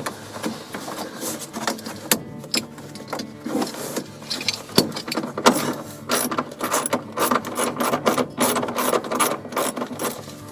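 Hand ratchet wrench clicking in quick runs of strokes while a seatbelt anchor bolt is turned, the clicks thickest in the second half.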